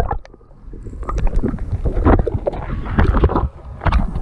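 Wind and water buffeting an action camera's microphone, a loud irregular rumble with many short knocks and a brief lull just after the start.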